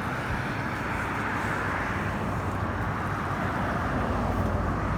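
Road traffic: cars driving past fast, a steady noise with no single sharp event.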